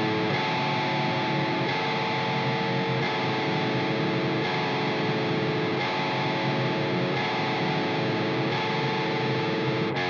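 Distorted electric guitar playing a metal intro: held chords that change about every second and a half.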